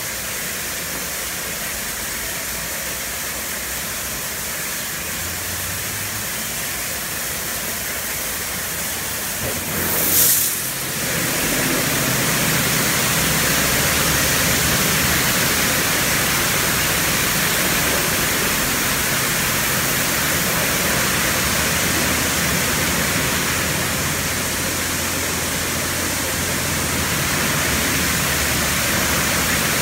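Oasis XP touchless in-bay car wash spraying water over a vehicle: a steady hiss of spray, with a sharp burst of hissing about a third of the way in, after which the high-pressure spray runs louder.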